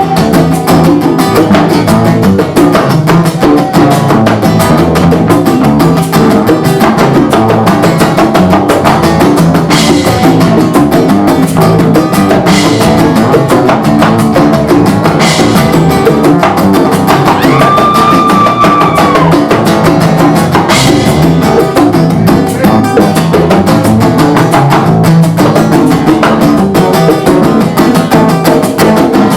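Instrumental break of a live acoustic jam-band song: strummed acoustic guitar with bongos and other hand percussion driving a steady beat. About midway a single high note is held for a couple of seconds and dips at its end.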